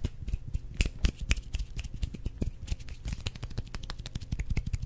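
Rapid, irregular clicking of plastic buttons and keys, many clicks a second.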